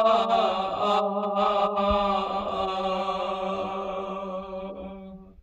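Unaccompanied male voices chanting a Kashmiri marsiya (elegy), holding one long note that slowly fades away near the end.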